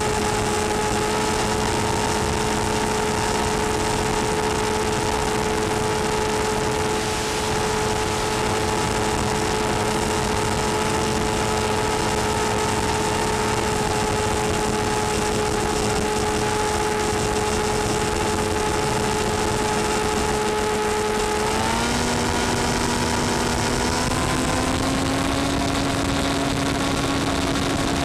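Electric motor and propeller of an FPV model plane, heard from on board: a steady pitched drone over rushing wind noise. Near the end the pitch steps up twice as the throttle is opened and the motor draws more current.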